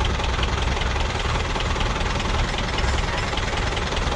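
Belarus 510 tractor's four-cylinder diesel engine running steadily, a loud, even low-pitched beat.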